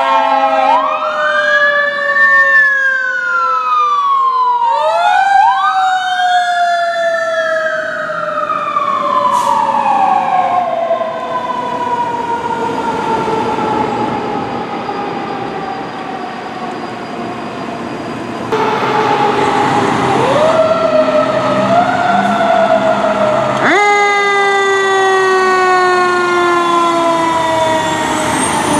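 Fire truck sirens: a siren wailing up and down over a long steady siren tone that slowly falls in pitch. Later a siren rises and then holds a tone that slowly drops.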